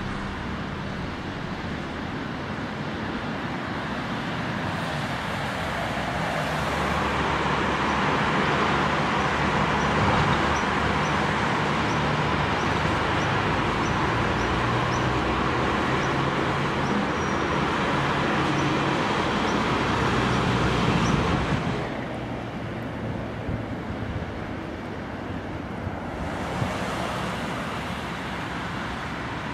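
Steady road traffic noise, with car engines and tyres running. It is louder in the middle and drops off suddenly about 21 seconds in, where the footage cuts.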